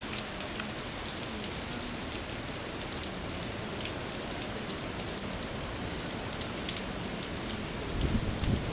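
Steady heavy rain, with many sharp drop hits close by. A louder low rumble comes in near the end.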